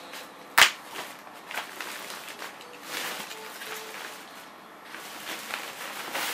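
White plastic wrapping being crinkled and pulled off a projector, an irregular rustling with a sharp crackle about half a second in.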